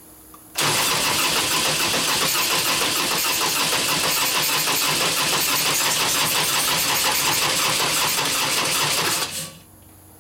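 Electric starter cranking the 2001 Indian Scout's 88ci S&S Evo V-twin, spinning it briskly for about nine seconds without it firing. It starts suddenly about half a second in and cuts off about a second before the end. The engine won't start despite fuel and spark, which the owner suspects is stale gasoline that won't burn.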